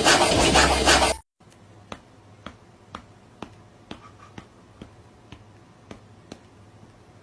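A loud scratchy, rhythmic noise cuts off abruptly about a second in, followed by a run of light, sharp clicks about two a second over a faint hum.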